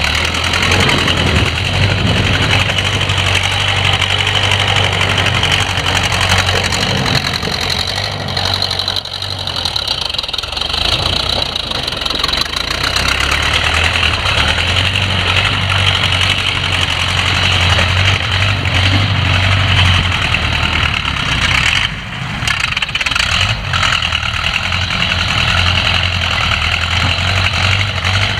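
Allis-Chalmers WD45 tractor engine running steadily, easing off about nine seconds in and picking back up a few seconds later, with another brief drop near the end.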